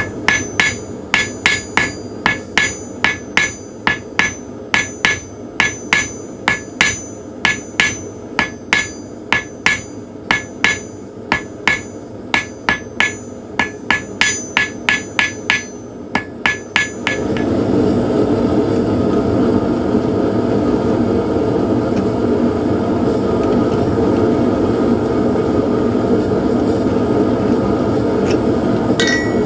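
Rounding hammer striking hot steel on an anvil in a steady rhythm, about three ringing blows a second, drawing out the steel and forming a scroll on the end of a firesteel striker. After about 17 seconds the hammering stops and a steady rushing noise takes over.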